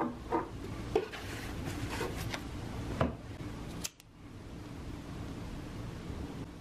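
Short scratches and taps of a match and its box being handled, then a sharp scrape about three seconds in as a match is struck alight.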